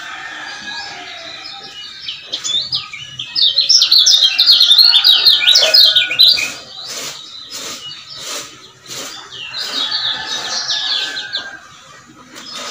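Lemon-bellied white-eye (kecial kuning) singing a rapid, jumbled chatter of high chirps. The song is loudest from about two to six seconds in and comes again more softly from about eight to eleven seconds.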